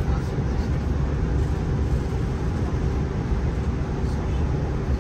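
Cabin noise inside a Class 165 diesel multiple unit running at speed: a steady low rumble of the underfloor diesel engine and wheels on the rails.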